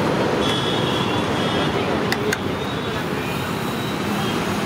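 Steady roadside traffic noise with voices in the background, and two sharp clicks in quick succession about two seconds in.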